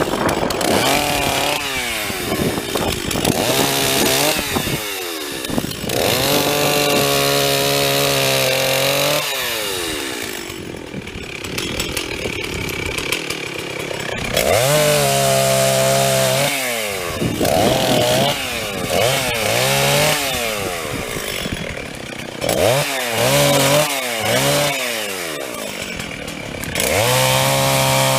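Gas chainsaw cutting into a blown-down tree: the throttle is repeatedly opened and let off, the engine pitch rising and falling, and held at full revs for a couple of seconds at a time while the chain is in the wood.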